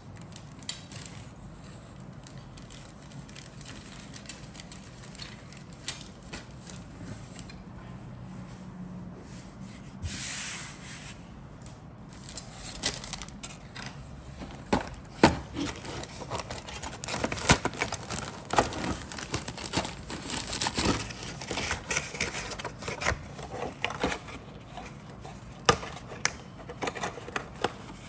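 Plastic model-kit sprues being handled with light clicks, then a clear plastic bag of kit parts crinkling and rustling, with many sharp crackles and clicks through the middle and latter part.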